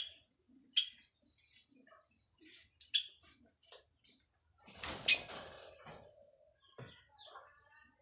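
White Java sparrows giving short, high single chirps a second or two apart in a cage, with a louder burst of noise about five seconds in.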